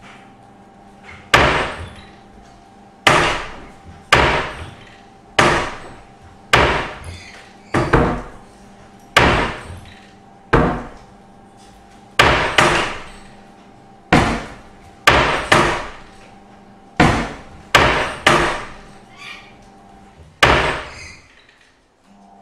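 A wooden door with glass panes slamming shut again and again, about eighteen bangs at uneven intervals, each dying away over about half a second.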